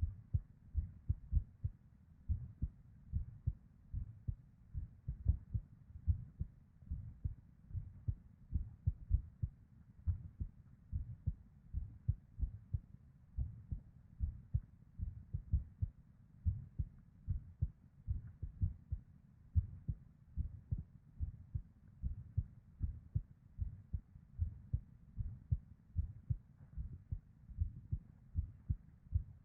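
A woman's heartbeat heard from inside the body: a steady run of low, dull lub-dub thumps with a faint whoosh of blood flow between beats. The rhythm is irregular, marked by ectopic beats (PVCs).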